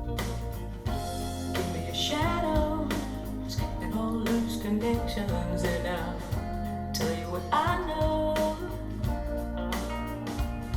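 A song with guitar, a steady beat and a singing voice, played back through a pair of JBL Studio 220 mini monitor speakers.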